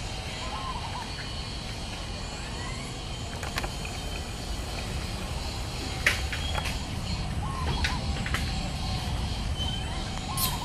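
Outdoor ambience over a steady low rumble, with a few short chirping calls and several sharp clicks; the loudest click comes about six seconds in and another near the end.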